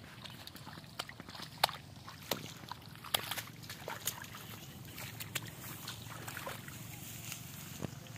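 Hands sloshing and squelching through shallow muddy water among marsh grass, with scattered sharp splashes and clicks over a low, steady background.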